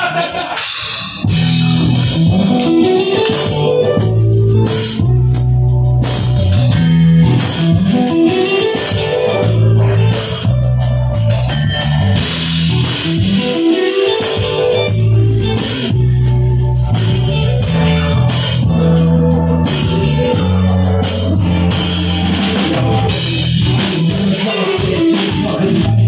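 Live rock band playing the instrumental intro of a song: electric guitar, bass guitar and drum kit, kicking in about a second in, with a heavy, rhythmic bass line.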